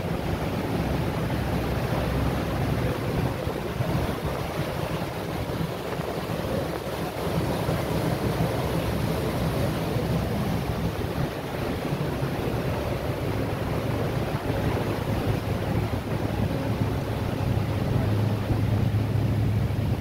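Star Ferry's engine running with a steady low drone under the rush of harbour water and wind on the microphone. The drone grows stronger near the end as the ferry gets under way.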